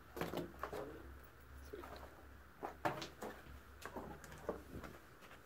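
A rubber flip-flop dropped down onto cave rock, then a series of scattered knocks and scrapes on the rock as someone climbs down, the loudest knock about three seconds in.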